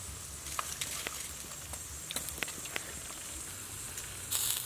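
Charcoal embers crackling under pork ribs grilling over the fire, with scattered sharp pops and a short hiss near the end.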